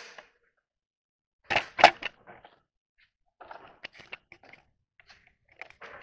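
Caster wheels and small hardware being handled and set on a green steel dust-collector base plate: two loud knocks about one and a half seconds in, then lighter clicks and rustling.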